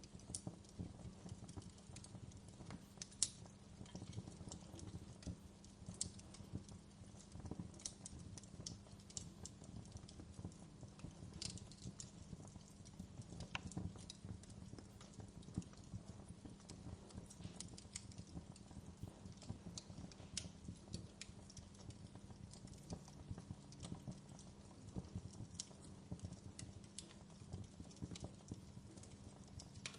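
Wood fire crackling in a fireplace: irregular sharp pops and snaps, one louder pop about three seconds in, over a low steady rumble.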